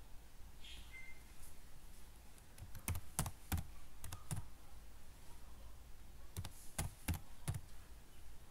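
Keys being typed on a computer keyboard, sharp clicks in two short runs of about four or five strokes each.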